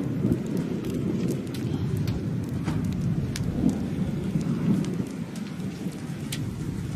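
Storm wind rumbling unevenly against the microphone, with scattered raindrops ticking on it.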